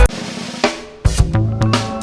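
Background music: a loud electronic track breaks off, then drums and a sustained instrumental part come back in about a second later.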